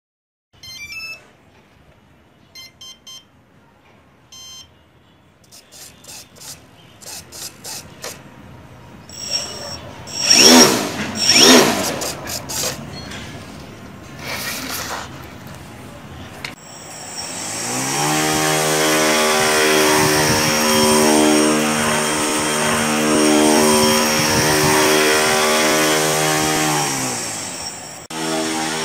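Brushless outrunner motor (A2212 1000 KV) and propeller of a homemade RC airboat, driven by a 30 A electronic speed controller: a few short high beeps as the battery is connected, then a couple of brief throttle blips. About two-thirds of the way in the propeller spins up into a loud steady buzz, holds for about ten seconds, and winds down near the end.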